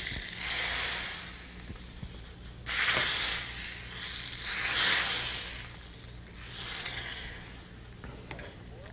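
A chaunce of hot ghee with fried cumin seeds and asafoetida sizzling as it hits boiling mung bean and tomato soup. It hisses in several loud surges, about 3, 5 and 7 seconds in, each dying away, with the soup stirred by a ladle.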